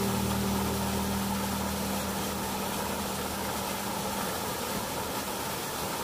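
Steady rushing of water over a small rocky cascade, heard as an even hiss. A held low chord of background music fades away over its first four seconds.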